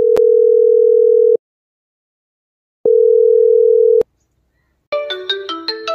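Mobile phone call ringing tone: two long, steady beeps on one tone, each a little over a second, with a pause between them. About five seconds in, a phone ringtone starts, a quick tune of short mallet-like notes.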